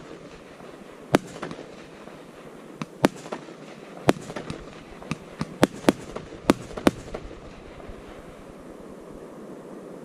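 Fireworks display: a string of about ten sharp bangs from bursting shells, coming thickest in the middle, over a continuous hiss.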